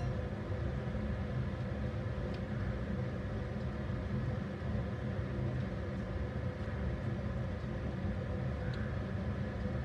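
A steady low mechanical hum of several fixed tones, with a few faint ticks.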